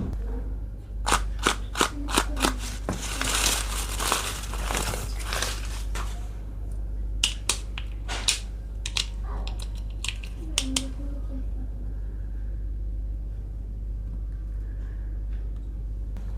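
Small plastic toy kitchen pieces and their packaging being handled: a run of sharp clicks, a rustle of crinkling wrapping, then another handful of clicks.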